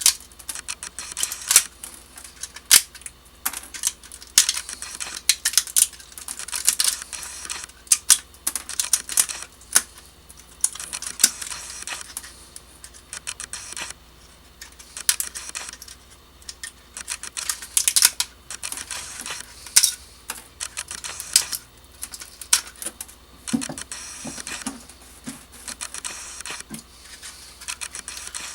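Support material being picked, cracked and snapped off a wood-filament 3D print: a long run of small irregular clicks, snaps and scratchy scraping of plastic, with no steady rhythm.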